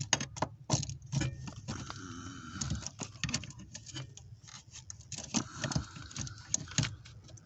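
A hand tool clicking, tapping and scraping irregularly against the brake light switch and its mounting up under the dashboard, working the switch loose.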